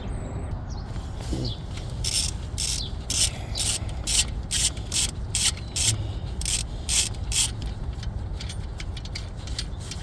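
Hand ratchet wrench backing out an alternator mounting bolt on a Chevy Suburban's 5.3 V8, with a run of quick rasping ratchet strokes, about two or three a second, that start about two seconds in and stop a couple of seconds before the end.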